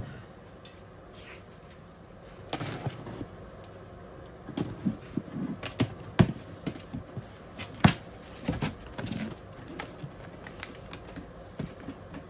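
Unboxing a heavy steel saw guard: irregular knocks and clinks of thick-gauge metal parts being handled and set down, with rustling of packaging between them. The loudest knocks come about six and eight seconds in.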